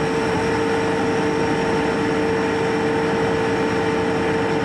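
Refrigerant recovery machine running steadily just after start-up: its compressor motor hums at one even pitch while it pulls refrigerant out of the leaking AC circuit.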